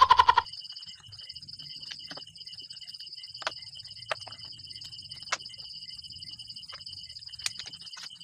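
A loud bleating animal call right at the start, then a steady high, pulsing chirring of insects, with a few sharp clicks scattered through.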